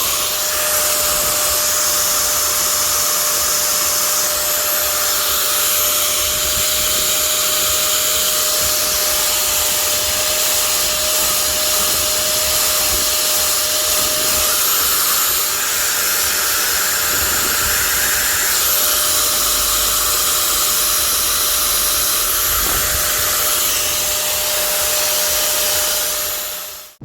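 Makita angle grinder's electric motor running steadily: a continuous hissing rush with a faint steady whine, fading in at the start and out at the end.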